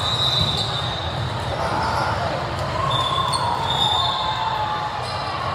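Volleyball gym din echoing in a large hall: ball contacts and players' and spectators' voices and shouts. A high, steady whistle sounds twice, once at the start for over a second and again about three seconds in as the rally ends.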